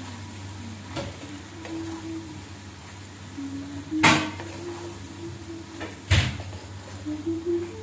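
Wooden spatula stirring and tossing cooked macaroni in a steel frying pan, with a few sharp knocks of the spatula against the pan, the two loudest about four and six seconds in, over a steady low hum.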